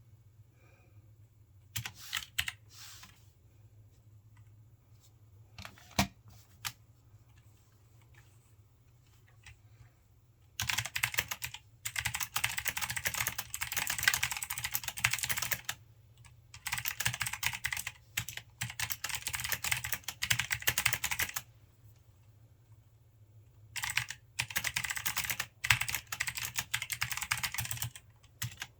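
Logitech G513 Carbon mechanical keyboard with blue switches being typed on. A few scattered keystrokes come in the first seconds, then three stretches of fast, continuous typing of about five seconds each, separated by short pauses.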